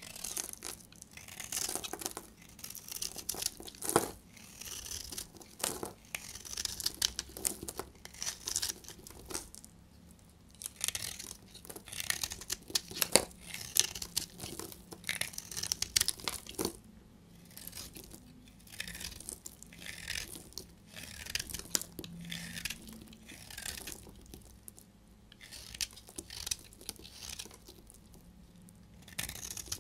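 Snap-off utility-knife blade shaving and carving a hard, dry bar of Nefis soap: repeated crisp scraping strokes with crumbly crunching as flakes break away, and a few sharp snaps as chunks crack off.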